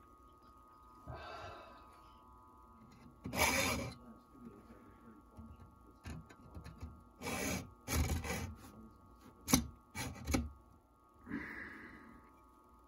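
A sigh, then a hacksaw cutting an aluminum casting in a handful of short, irregular rasping strokes, with one sharp click among them.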